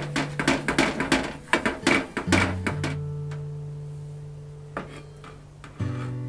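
Background acoustic guitar music with held notes. Over it, for the first two and a half seconds, a wooden spatula clatters and knocks against a metal pot while boiling brown sugar syrup is stirred.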